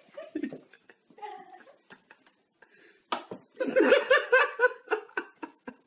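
A person laughing, with a quick run of repeated ha-ha sounds about three and a half seconds in, and softer short bits of voice before it.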